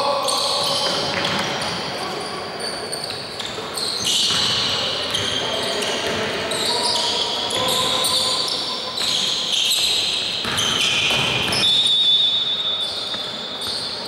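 Basketball game sounds in a gym: a basketball bouncing on the hardwood court, sneakers squeaking in short high chirps, and players calling out, all echoing in the hall.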